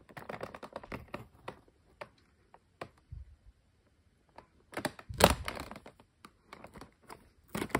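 A small knife blade scratching and clicking at the edge of a cardboard blister card as it is worked apart, with a louder crackle of the card about five seconds in.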